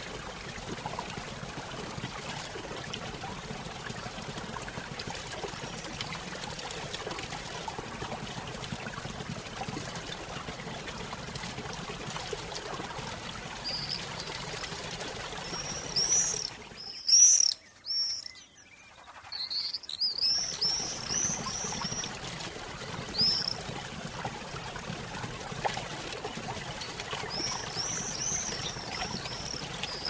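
Steady rushing of a waterfall, with small birds chirping in quick, high, repeated notes from about halfway through, loudest just past the middle. The water sound cuts out for about three seconds around the middle while the birds go on.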